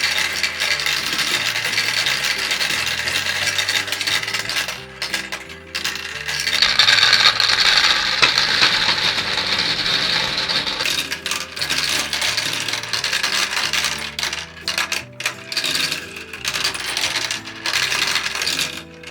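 Gumballs rolling and clattering down a marble run's track, with a denser rush of clatter about seven seconds in, over background music.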